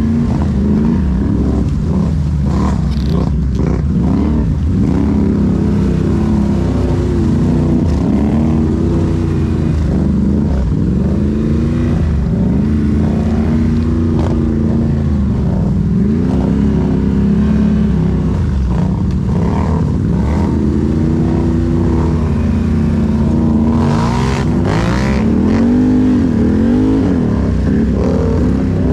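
Can-Am ATV engine running hard while riding, its pitch climbing and dropping again and again as the throttle is worked. A brief rush of noise joins it about four-fifths of the way through.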